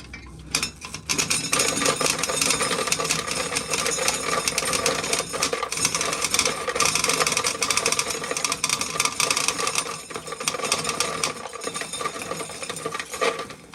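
An ear of corn being shelled: a dense, rapid rattle of kernels coming off the cob and dropping into a bucket. It starts about half a second in and stops just before the end.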